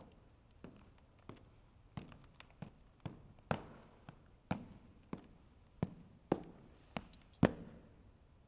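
Footsteps of hard-soled dress shoes on a stage floor, a series of sharp heel strikes about every half to two-thirds of a second, getting louder toward the end.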